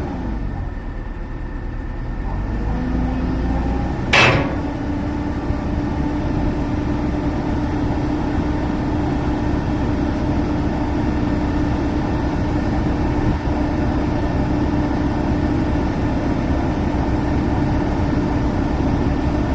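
Heavy diesel engine running steadily, with one sharp knock about four seconds in.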